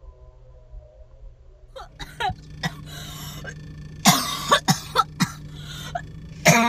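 A woman coughing in several harsh bursts, a coughing fit brought on by laughing hard, over a steady low hum.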